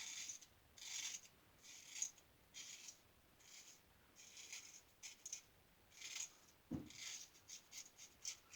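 Star Super Six safety razor with a GEM single-edge blade scraping through beard stubble in short, faint strokes, about one a second.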